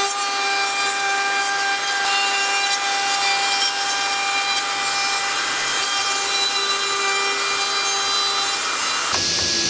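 Bosch plunge router running at a steady high whine while cutting into a solid-wood frame, with the noise of the bit chewing through the wood. Near the end the sound cuts abruptly to a different, hissier machine noise.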